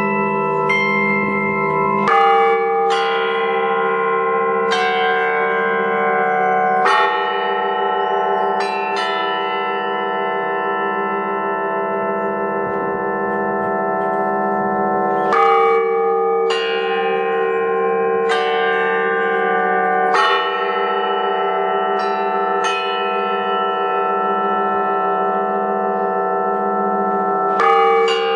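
Many bells of a Russian-style belfry (zvonnitsa) rung by hand: a strike every second or few, some in quick pairs, each leaving a long ringing tone that overlaps the next, over the continuous hum of the larger bells.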